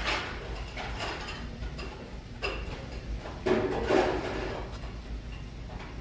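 A person eating with chopsticks from a small bowl: short bursts of chewing and slurping mouthfuls, the loudest about three and a half seconds in.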